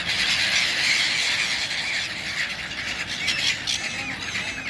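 Many birds calling at once in a dense, continuous chorus, with a few separate calls standing out over it in the last second or two.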